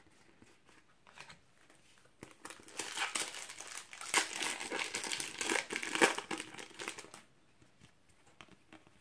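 A Panini Euro 2016 trading-card packet wrapper being torn open and crinkled in the hands. The crinkling runs loudly for about five seconds, starting about two seconds in.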